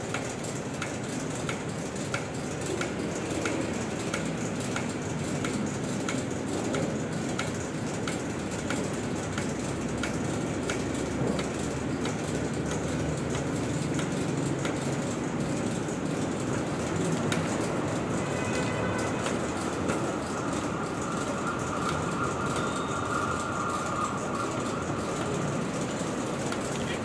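Factory conveyor machinery running steadily, with a regular clicking from the overhead trolley line; a steady high whine joins about two thirds of the way through.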